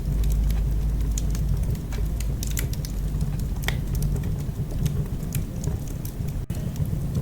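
Wood fire burning in a fireplace: irregular sharp crackles and pops over a steady low rumble of the flames, with a momentary drop-out near the end.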